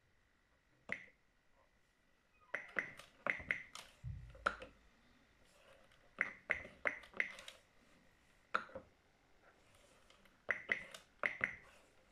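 Typing on an Oric-1 home computer's keyboard: short runs of sharp key clicks, a few quick keystrokes at a time with pauses between. There is a dull thump about four seconds in.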